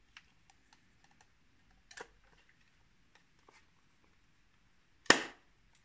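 Metal back of a Meopta Flexaret VI twin-lens reflex camera being swung shut and pressed home by hand: faint scattered clicks and taps, a small click about two seconds in, then one sharp snap as the back latches about five seconds in.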